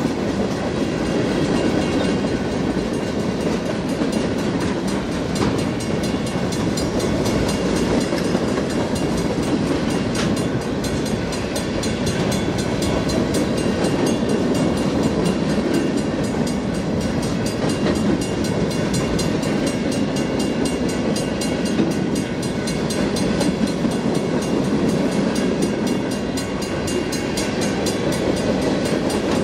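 A train of centerbeam freight cars rolling past, its wheels making a steady rumble on the rails.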